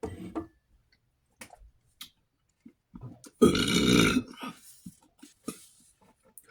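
A man's loud burp about three and a half seconds in, lasting nearly a second, with a shorter sound right at the start and faint mouth clicks between.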